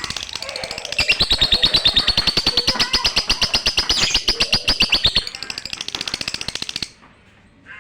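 Lovebird singing a long, rapid chattering trill of sharp high chirps, about ten a second, that stops abruptly near the end.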